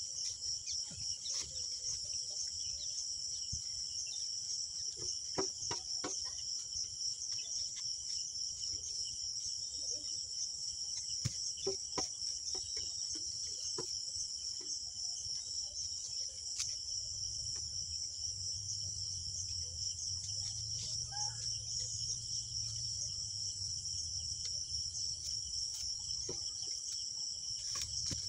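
Insects chirring in a steady, high, finely pulsing drone, with scattered light clicks and knocks. A low hum comes in about two-thirds of the way through.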